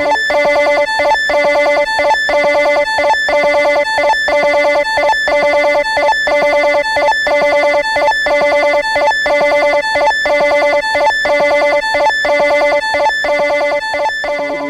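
Recorded sound effect of the LEO (Lyons Electronic Office) computer: a rapid, evenly repeating pattern of electronic bleeps at several pitches, cycling about one and a half times a second.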